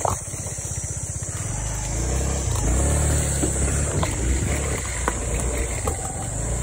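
SYM Woo 115 scooter's single-cylinder engine pulling the bike slowly up a rough, overgrown trail, getting louder about two seconds in as it is given more throttle. A few short clicks come through near the end.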